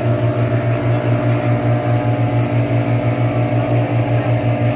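Boat engine running steadily under way, a loud, even low throb of several beats a second with water and wind noise over it.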